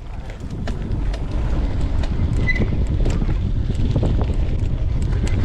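Mountain bike riding fast along a dirt trail: low wind rumble on the microphone with tyre noise and scattered clicks and rattles from the bike, building over the first second and then holding steady.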